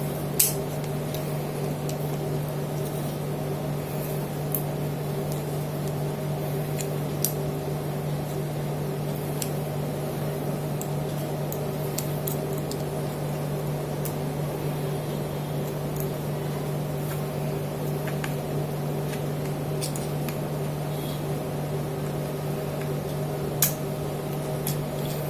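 A steady low hum runs throughout, with a few faint, scattered clicks as small screws and washers are handled and fitted.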